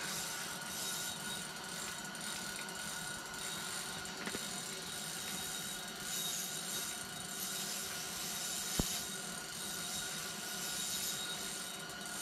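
Fishing reel being cranked steadily to bring up a hooked lake trout, its gears making a continuous ratcheting whir. There is a single sharp click about three-quarters of the way through.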